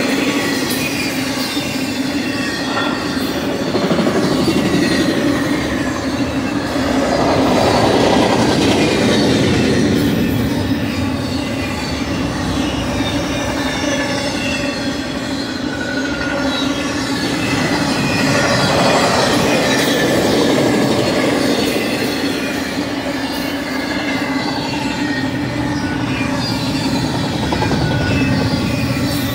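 Intermodal freight cars of a fast-moving BNSF Z train rolling past: a steady rumble and clatter of steel wheels on the rails, with faint high wheel squeal, swelling and easing every several seconds.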